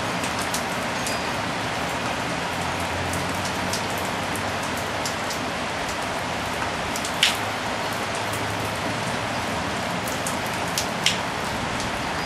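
Steady tropical rain shower falling on a balcony, with scattered drip clicks and two louder sharp taps, about seven and eleven seconds in.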